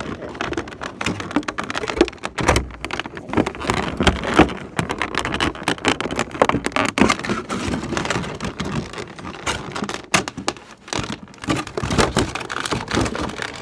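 Toy packaging being worked at by hand, close to the microphone: dense, irregular plastic crackling and clicking as the figure is pulled at, stuck fast in its box.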